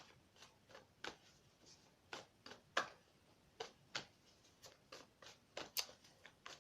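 Tarot cards being handled and laid out on a table: irregular light clicks and taps, a couple a second.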